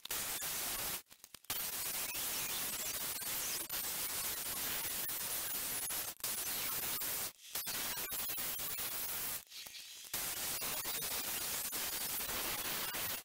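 Portable band saw cutting steel flat bar, played back fast-forwarded so it comes through as a steady hiss. The hiss breaks off suddenly several times for a moment where the footage is cut.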